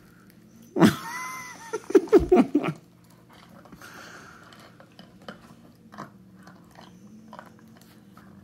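Two goldendoodles play-fighting. About a second in comes a loud two-second scuffle of snarling with a short high yelp-like cry. After it, faint mouthing clicks and snaps.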